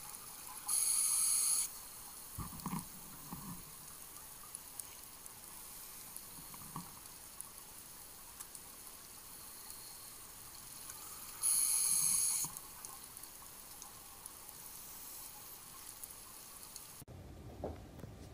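Underwater recording of a scuba diver breathing through a regulator: a hissing inhalation about a second in and another about ten seconds later, with low bubbling exhalations after them, over a steady underwater hiss.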